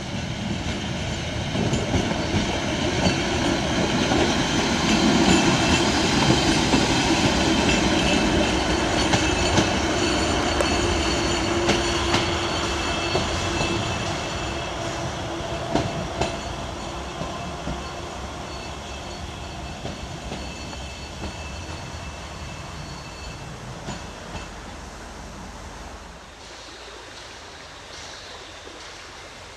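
Narrow-gauge diesel railcar running past and pulling away over curved track and points: engine running, wheels clicking over the joints, and a thin high wheel squeal. It is loudest a few seconds in and fades steadily as it moves off.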